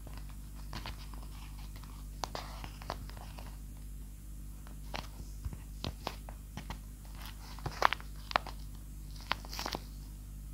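Handmade paper-and-tape squishy being handled and squeezed, giving irregular crisp crackles and crinkles, a few louder ones near the middle and toward the end.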